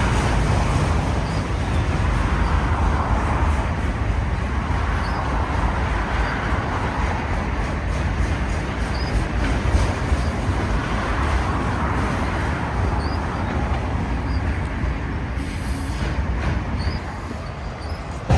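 Freight train cars rolling past: a steady rumble of steel wheels on rail, with faint brief high squeals every second or two.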